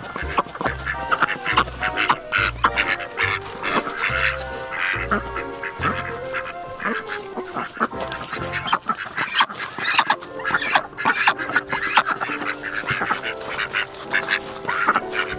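Ducks quacking repeatedly over background music with held notes; a low pulsing beat in the music drops out about six seconds in.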